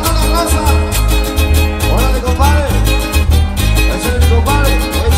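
Live regional Mexican band playing a fast zapateado dance tune, with a heavy pulsing bass, an even beat and sliding melody lines above it.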